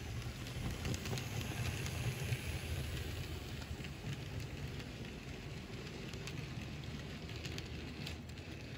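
Model freight train rolling past on its track: a low, steady rumble with a faint crackle and a few scattered clicks.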